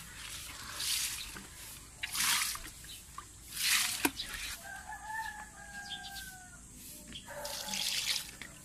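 Water poured from a dipper onto potted plants in four short splashing pours. In the middle a rooster crows once, a drawn-out call that falls slightly in pitch.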